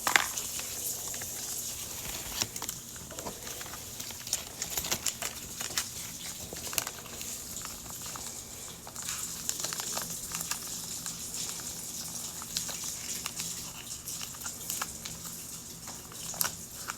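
Crinkling and rustling of paper and plastic wrapping with scattered small clicks and taps, as a Mini Brands capsule and its miniatures are unwrapped and handled.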